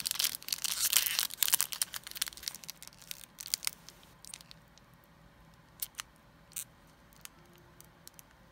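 A Yu-Gi-Oh! booster pack's foil wrapper being torn open by hand. Dense crinkling and tearing for the first two or three seconds, then only occasional faint crinkles as the torn foil is handled.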